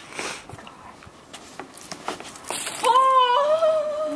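A few light clacks of plastic toy lightsabers, then about three seconds in a long, high-pitched wordless yell that wavers and then holds for over a second.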